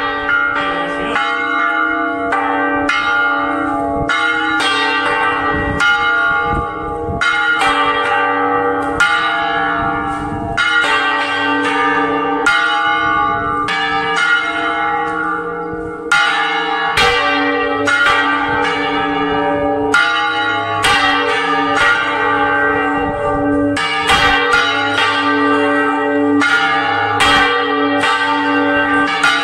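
Large bronze church bells rung by full-circle swinging (Spanish volteo), a bell on a wooden counterweighted headstock pushed round by hand so its clapper strikes again and again in a steady rhythm. Each stroke rings on, with a deep hum sustained between strokes.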